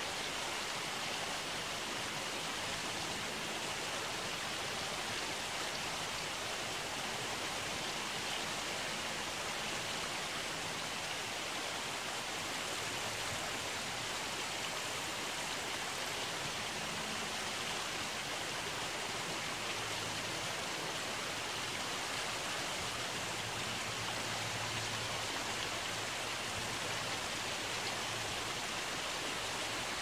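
Steady rush of flowing river water, an even hiss with no distinct events, over a faint low hum.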